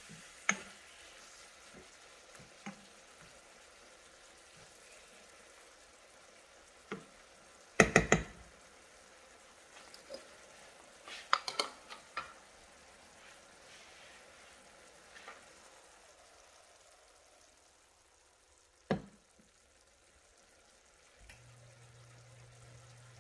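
Vegetables and fermented fish sizzling faintly in a frying pan on low heat, with scattered clicks and knocks of a spatula and utensils: a loud cluster about eight seconds in, more around eleven to twelve seconds and a single low thump later. A low steady hum comes on near the end.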